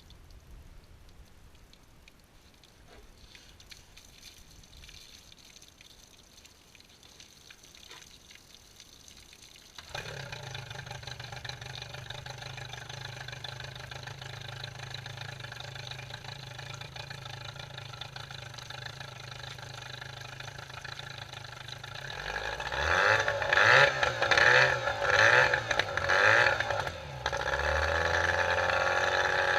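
An engine starts about ten seconds in and runs steadily at idle, then is revved in a series of short blips from a little past twenty seconds, settling at a higher, louder steady speed near the end.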